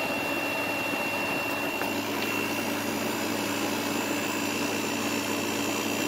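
Kool King window air conditioner running out of its case, its fan blowing and compressor running: a steady hum and rush of air with a thin, steady high whine over it. The unit is running and cooling, with about a 50-degree split on the refrigerant lines.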